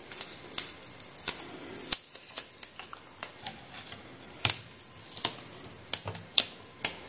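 Alligator-clip test leads and a small potentiometer module being handled and clipped onto wires: a string of irregular sharp clicks and taps, a couple of them louder, about two a second.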